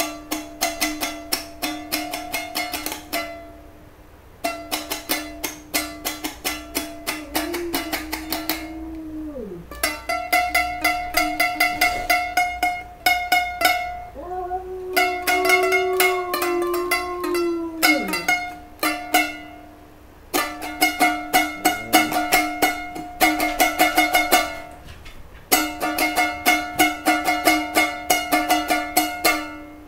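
Strummed chords on a small guitar-like string instrument, played in phrases with short pauses, with a white boxer joining in twice with long held howls that slide down in pitch at the end.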